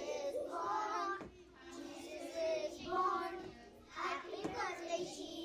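Young children singing a song together, with musical accompaniment.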